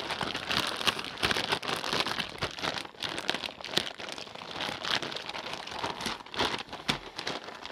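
Plastic zip-lock freezer bag crinkling and rustling irregularly as it is shaken and kneaded, tossing meat in marinade inside it.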